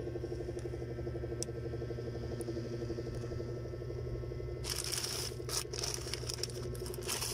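Plastic courier mailer pouch crinkling and rustling as it is handled, starting about two-thirds of the way in, over a steady low hum.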